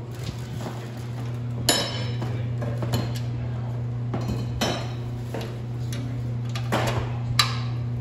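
Metal engine parts and tools clinking and knocking as they are handled and sorted from a plastic parts tub, in several sharp, irregularly spaced clanks over a steady low hum.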